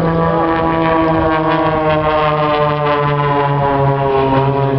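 Two propeller-driven aerobatic planes flying past in formation, the drone of their piston engines falling slowly in pitch.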